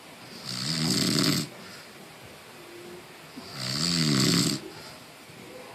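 A sleeper snoring with two snores about three seconds apart, each lasting about a second. Each snore has a low, droning pitch and a breathy hiss.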